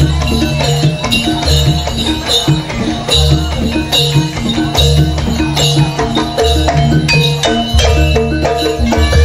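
Loud live jaranan music: a gamelan-style ensemble of drums, gongs and pitched metal percussion playing a fast, repeating pattern.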